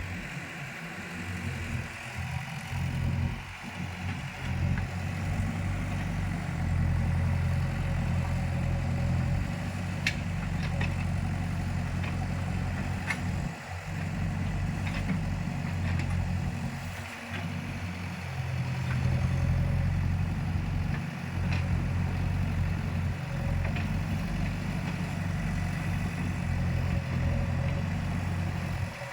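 Diesel engine of heavy earthmoving or farm machinery running steadily at low speed, with a few brief dips and a handful of faint sharp clicks.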